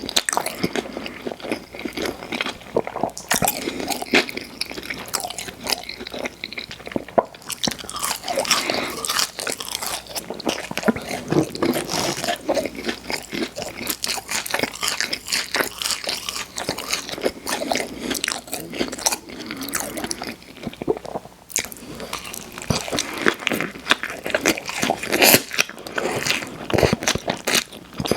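Close-miked chewing and biting of fast food, with continuous crunching, wet smacking and crackling mouth sounds at an irregular pace.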